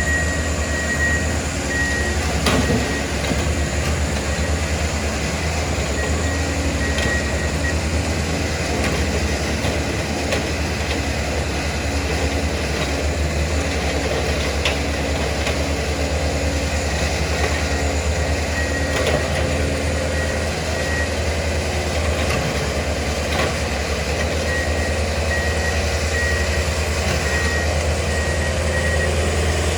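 Diesel-powered railroad track maintenance machines running steadily while a backup alarm beeps repeatedly, stopping for a stretch in the middle. A few sharp metallic knocks come through, the clearest about two and a half seconds in.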